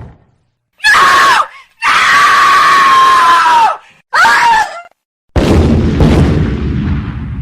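Three sound-effect screams with near silence between them: a short one, then a long one held at one pitch that drops at the end, then another short one. About five seconds in comes a sudden loud bang with a long noisy tail.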